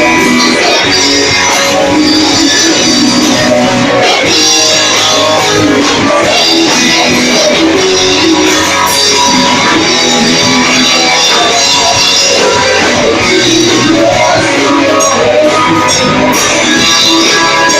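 Rock band playing live, loud and steady: guitars over a drum kit.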